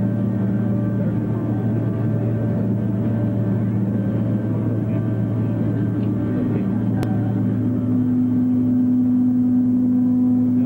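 Boeing 737-200's Pratt & Whitney JT8D jet engines heard from inside the cabin while the plane taxis: a steady drone made of several constant hums. About seven and a half seconds in, a higher hum comes in and the sound grows slightly louder.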